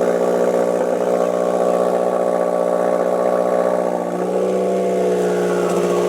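2015 Subaru WRX's turbocharged flat-four idling steadily through a newly fitted Nameless turboback exhaust with muffler delete. The idle note shifts slightly about four seconds in.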